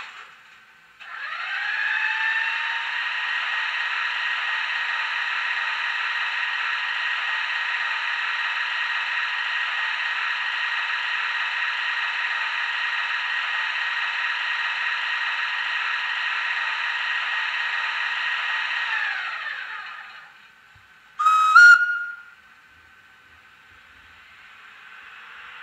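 Simulated electric-locomotive sounds from the LokSound DCC sound decoder in a Heljan ES1 model, played through its small speaker: after a click, an electrical machine whine spins up rising in pitch, runs steadily with several tones, then winds down. A short whistle with a step up in pitch follows, then a faint hiss slowly builds.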